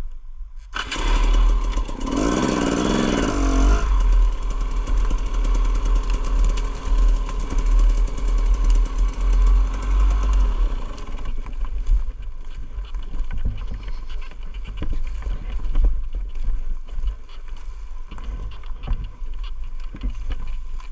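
2016 KTM EXC 250 two-stroke enduro engine revving hard as the bike pulls away about a second in, climbing in pitch, then running with the throttle blipped up and down over a rough forest trail.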